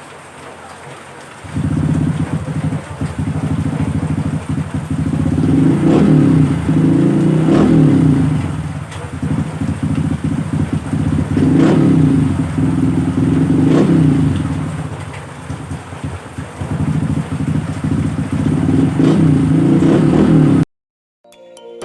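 Honda RS 125 PGM-FI single-cylinder four-stroke engine running through a Taikom aftermarket exhaust. It runs quietly at first, then loud from about a second and a half in, blipped up in about five revs, and cuts off suddenly near the end.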